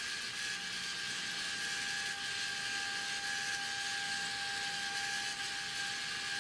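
Kollsman true airspeed indicator's AC servo motor and gear train running as it drives the knots counter upward, following a synchro transmitter turned by hand: a steady whine over a light hiss.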